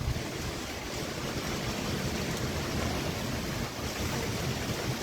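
Steady wind rushing and gusting against the microphone as a thunderstorm passes, with an uneven low rumble of buffeting under the hiss.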